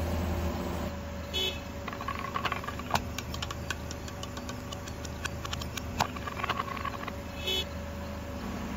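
Car engine running slowly with the tyre creeping over gritty asphalt: a steady low hum under scattered small clicks and crackles. Two brief squeaks sound, about a second and a half in and again near the end.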